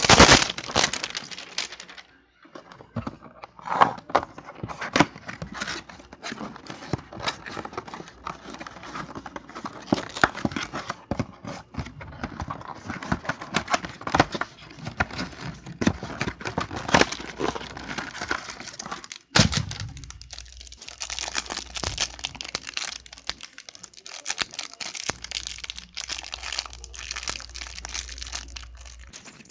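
Plastic wrapping and trading card packs being handled and torn open by hand: irregular crinkling, rustling and crackling, with a short pause about two-thirds of the way through.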